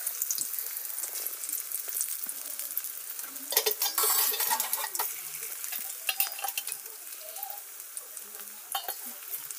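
Cabbage and lentil-paste pakoras sizzling and crackling as they deep-fry in hot oil in a steel kadai. About three and a half seconds in, the sizzling flares louder as more batter is dropped into the oil.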